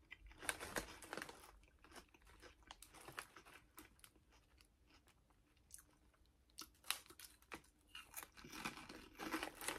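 Quiet crunching and chewing of Lay's Limón lime-flavoured potato chips in the mouth, with a new bite and a run of louder crunches about seven seconds in.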